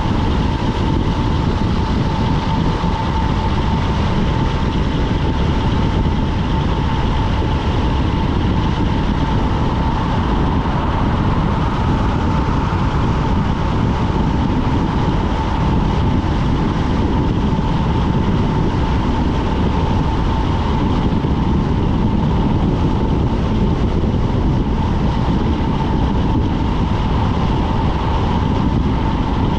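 Wind rushing over a handlebar-mounted action camera and road-bike tyres rolling on asphalt during a fast downhill run, a steady rumble with a constant high whine through it.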